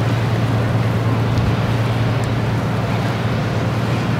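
Motor boat's engine running steadily under way, a constant low hum, with an even wash of water and wind noise over it.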